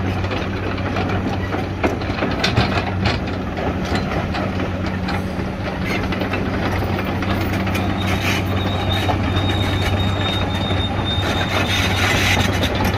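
Komatsu crawler excavator's diesel engine running steadily as the machine travels on its steel tracks, the tracks clanking and rattling throughout. A thin high squeal from the running gear sounds for a few seconds around the middle.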